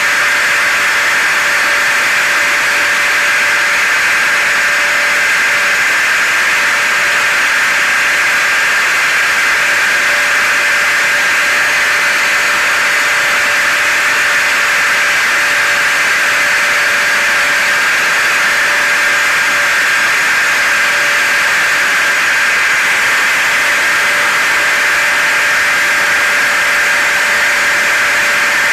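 Hair dryer, vacuum cleaner and car noise layered together as continuous white noise: a loud, even hiss with two steady motor whines, one lower and one higher.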